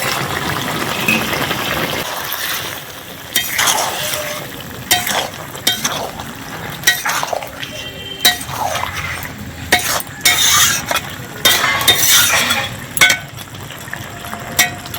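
Fried fish being stirred into a simmering curry: a hiss from the pot, then a utensil scraping and clinking irregularly against the cooking pot.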